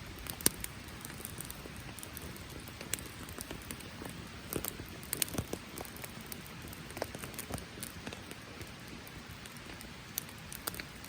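Steady rain falling, with a wood campfire of damp firewood giving scattered sharp crackles and pops.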